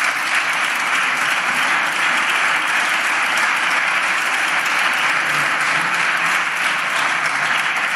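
Members of parliament applauding from their benches: steady, dense clapping.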